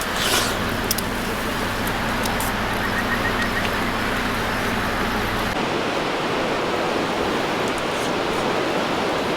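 Steady rushing noise, with a low hum underneath that cuts off about five and a half seconds in.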